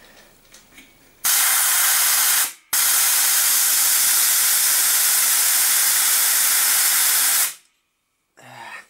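Compressed air hissing out of a piston air compressor's tank, let out in two goes: a short blast about a second in, then a longer one of about five seconds that cuts off sharply. The tank is being bled down because it is still full, so the pressure switch will let the motor start.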